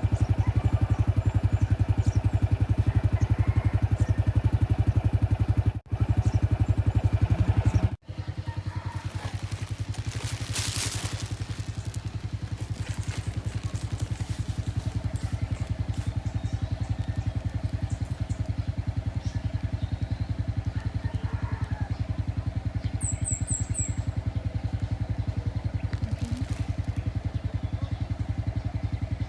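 A small engine running steadily with a fast, even pulse, briefly cut off twice in the first eight seconds.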